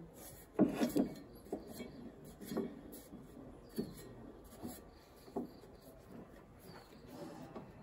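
A weathered tree stump being handled and pressed onto a metal lathe's centre: irregular wooden knocks and scrapes, the loudest about half a second to a second in, then lighter ones every second or so.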